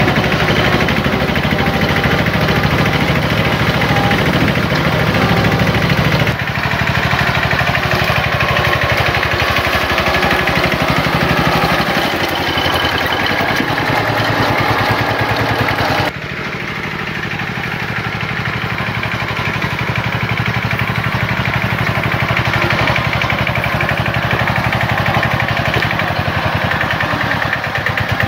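Kubota K75 hand tractor's single-cylinder diesel engine running steadily under way, with a rapid, even firing beat. The sound changes abruptly twice, about six and sixteen seconds in.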